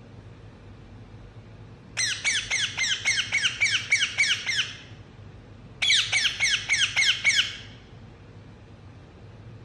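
Indian ringneck parakeet giving two bouts of rapid, harsh repeated chirps at about four or five notes a second. The first starts about two seconds in and lasts nearly three seconds; the second, shorter one follows a second later.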